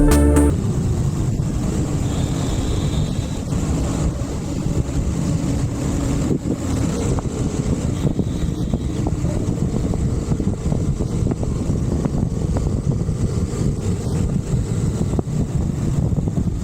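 Motorcycle on the move: a steady low rumble with wind buffeting the microphone, after background music cuts off about half a second in.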